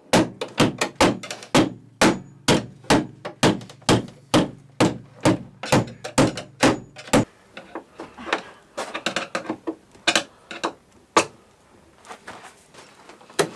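Rapid, repeated knocking like hammer blows, about four strikes a second for some seven seconds, then slower, scattered knocks.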